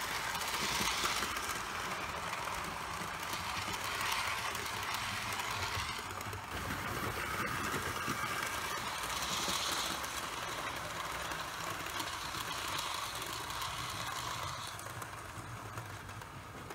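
Hornby OO gauge A4 model steam locomotive running along sectional track with coaches: a steady electric motor whir with the rattle of wheels on the rails. It grows fainter near the end as the train runs away.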